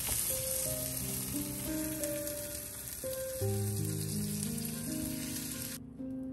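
Beaten egg and shrimp frying in a hot cast-iron pan, a steady sizzle that cuts off suddenly shortly before the end. Soft background music plays underneath.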